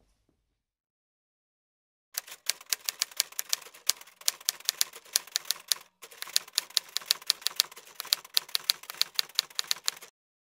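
Typewriter sound effect: a rapid run of sharp keystroke clicks starting about two seconds in, pausing briefly midway and stopping just before the end.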